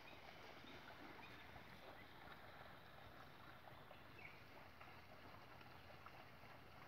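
Near silence: faint outdoor ambience, an even low hiss with no distinct event.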